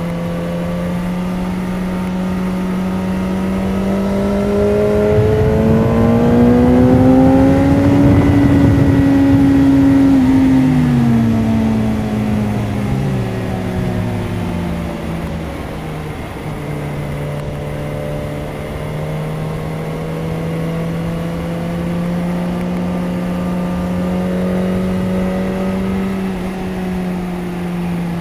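BMW S1000RR inline-four engine running hard under way in fourth gear. Its pitch climbs for a few seconds, eases back, then holds steady. Wind rushes over the microphone, loudest when the engine note peaks.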